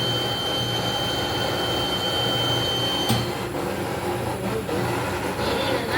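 Steady mechanical noise with a low rumble and a high whine; the whine cuts off with a click about three seconds in.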